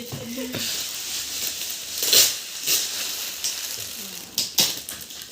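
Gift wrapping crinkling and rustling as a present is unwrapped, with a louder rip or crackle about two seconds in.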